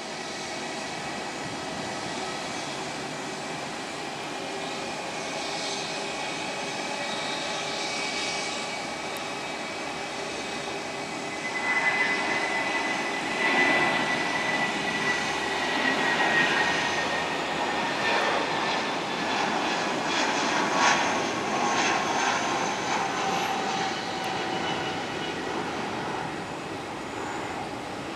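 Airbus A319's twin IAE V2500 turbofans at takeoff thrust through the takeoff roll and climb-out: a steady jet noise that swells about twelve seconds in as the airliner passes close, with a whine sliding down in pitch, then eases as it climbs away.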